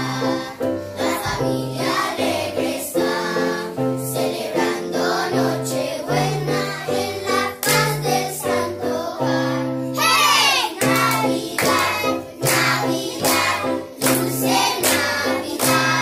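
A group of children singing together to an electronic keyboard accompaniment of held chords and a bass line, with a falling swoop about ten seconds in.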